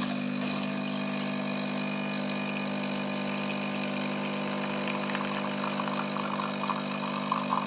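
Jura E8 bean-to-cup coffee machine brewing, its pump giving a steady hum as coffee runs from the spout into a mug.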